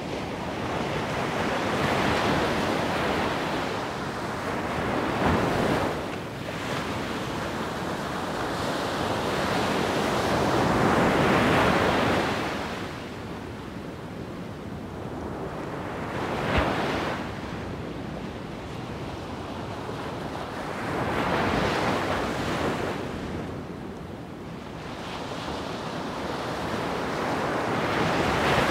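Wind gusting over the microphone, a rushing noise that swells and eases every few seconds, with a brief click about a third of the way in and another just past halfway.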